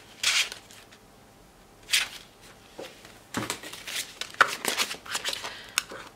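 Hands rummaging through packaged craft supplies, plastic sleeves and packs rustling: a couple of short rustles at first, then from about three seconds in a busy run of rustling and sharp clicks as a clear plastic pack of metal cutting dies is pulled out and handled.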